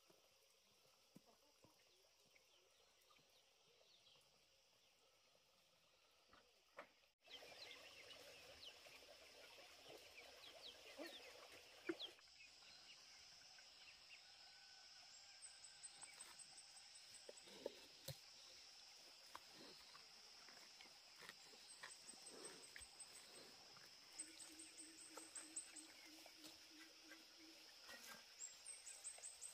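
Near silence at first, then, about seven seconds in, a sudden change to faint outdoor ambience: a steady high insect hum with short high trills, scattered light clicks and knocks, the loudest about twelve seconds in. Near the end a low, rapid trill repeats for a few seconds.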